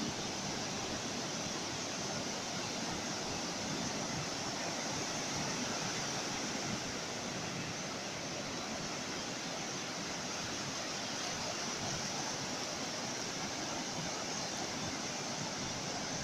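Ocean waves, heard as a steady, even wash of surf with no single break standing out.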